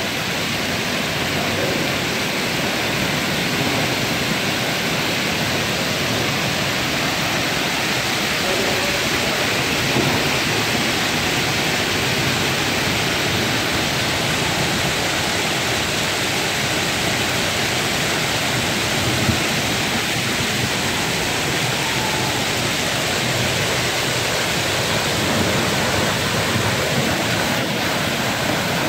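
Hail and heavy rain pelting an asphalt parking lot: a steady, dense rush of countless small impacts, with an occasional slightly louder single hit.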